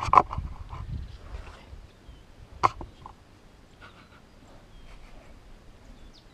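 Rustling and knocking of a handheld action camera as it is lifted and settled, fading over the first second or so, then one short sharp sound about two and a half seconds in. After that it is quiet apart from faint bird chirps.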